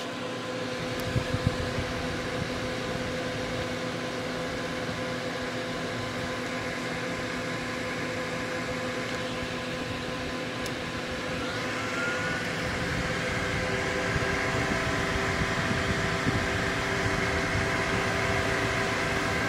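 Graphics card cooling fans, one a replacement MSI 87 mm ball-bearing fan, running at full speed: a steady loud whir with a hum of several steady tones. About twelve seconds in, the hum shifts pitch and grows a little louder.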